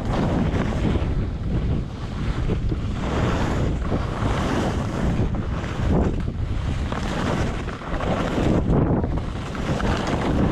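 Strong wind blowing across the camera microphone, a loud rushing noise that swells and eases in gusts.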